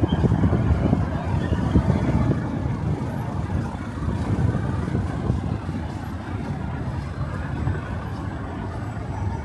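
City street traffic: a motor vehicle rumbling close by, loudest in the first couple of seconds and then easing off.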